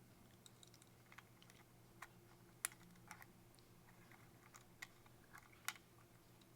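Faint, scattered small clicks and taps from handling the cuckoo clock's parts while the bird is unhooked from its door and the movement is freed, with two sharper clicks about two and a half and five and a half seconds in. A faint steady hum lies underneath.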